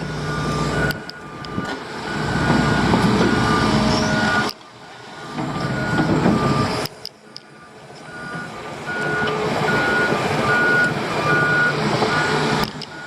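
Back-up alarm on a piece of heavy machinery beeping steadily, about two beeps a second, over loud engine noise. Both cut out abruptly twice and start again.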